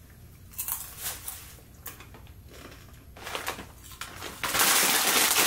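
A few soft crunches as a piece of candy is bitten and chewed, then a plastic candy bag crinkling loudly for the last second.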